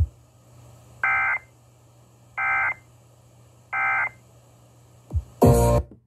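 Emergency Alert System end-of-message tones over an FM radio: three short, identical warbling data bursts about a second and a half apart, which mark the end of the weather alert. Near the end comes a brief loud burst of other sound.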